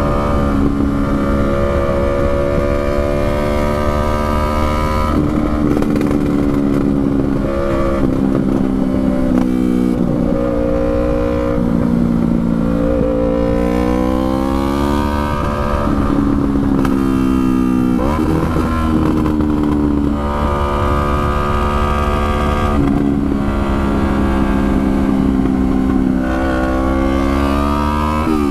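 Sport-bike engine, a 2019 Yamaha R3's parallel twin, running under way. Its note holds steady for stretches, then steps and glides up and down several times with throttle and gear changes, with a quick rev up and down about two-thirds of the way through and again at the very end. A steady low rush of noise lies under it.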